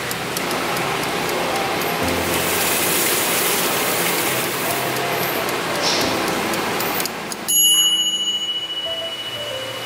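Air fryer running after being set to preheat: a steady fan rush, with light regular ticking from its mechanical timer near the start, over soft background music. About seven and a half seconds in the rushing cuts off suddenly, leaving a thin, steady high tone.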